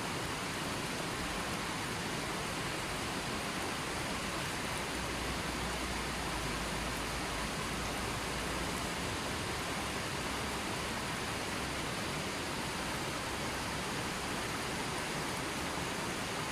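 River water flowing: a steady, even rush of water that does not change.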